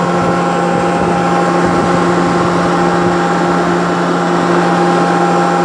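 US Equipment USH3A closed-door baler running with a steady machine hum, several fixed tones held over a noisy rumble, from its hydraulic power unit.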